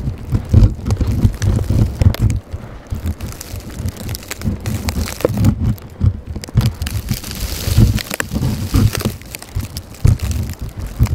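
Blizzard wind buffeting the microphone in gusts: a loud, low rumble that keeps surging and dropping.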